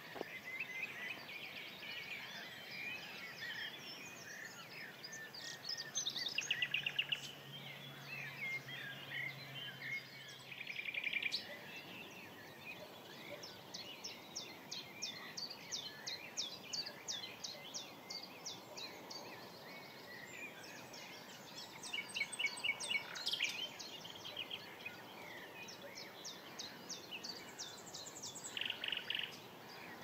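Several songbirds singing at once: overlapping songs with trills and fast runs of repeated high notes, a few phrases standing out louder than the rest.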